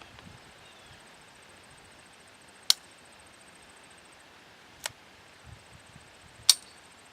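Browning Buck Mark .22 LR pistol firing three single shots a couple of seconds apart, sharp cracks with the middle one noticeably quieter.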